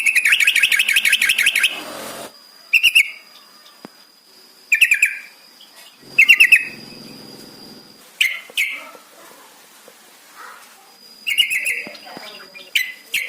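Yellow-vented bulbul (trucukan) song: a rapid bubbly trill of almost two seconds, then short chattering phrases every second or two. A faint steady high tone runs behind it for much of the time.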